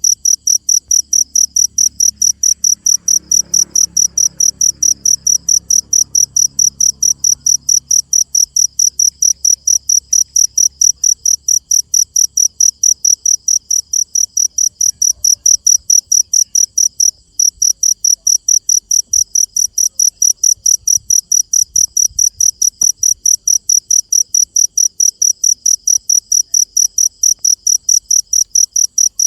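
A cricket chirping loud and steady at night, a high pulsed trill repeating about four times a second, with one short break about seventeen seconds in.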